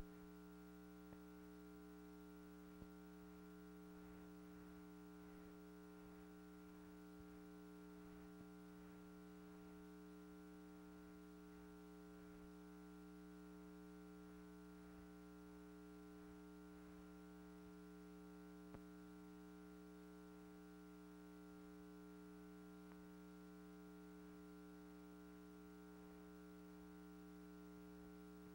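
Near silence: a faint steady electrical hum with a few tiny clicks, the bare soundtrack of a silent film transfer.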